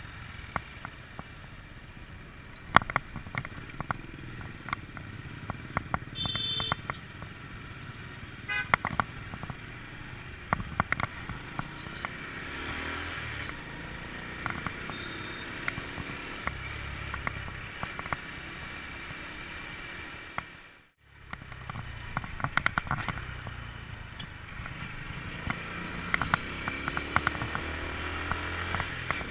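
Scooter ride in city traffic: steady engine and road noise with frequent sharp knocks and crackles, and a short high horn beep about six seconds in. The sound cuts out briefly about three quarters of the way through.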